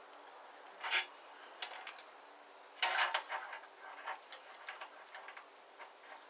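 Scattered small metallic clicks and taps as an Allen key is fitted and worked in the set screws of a bandsaw's metal blade guide blocks: one click about a second in, a cluster near three seconds, then fainter ticks.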